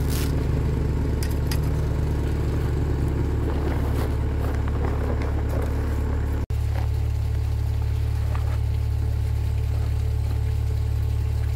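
Diesel excavator engine idling with a steady low drone, while cement powder is shaken from paper sacks into its bucket.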